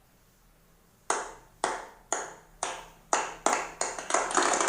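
Clapping sound effect played from an Amazon Echo Dot (3rd Gen) smart speaker in answer to a request to clap: after about a second of quiet, single claps about half a second apart come faster and faster and merge into continuous applause near the end.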